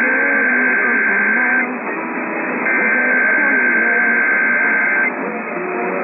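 Emergency Alert System SAME header tones received off the air on AM radio. Two harsh bursts of steady high data tones, each about two and a half seconds long and a second apart, run over static and faint garbled voices from other stations. They are the coded header that opens a Required Weekly Test.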